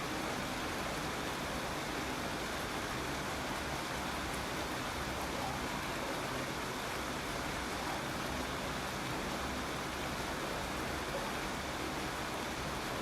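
Steady rainfall, an even hiss of rain with no single drops standing out.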